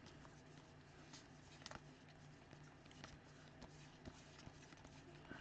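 Near silence: faint, scattered clicks and light rustles of trading cards being handled and flipped, over a low steady hum.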